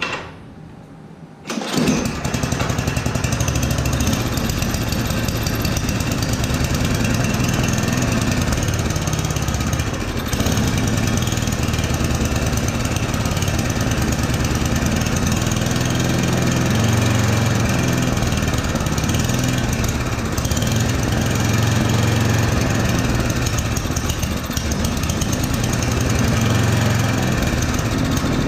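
Yard Machines 8 hp two-stage snowblower's single-cylinder engine catching about two seconds in, then running with its speed rising and falling (hunting). This is the sign of a clogged carburettor, most likely the idle circuit.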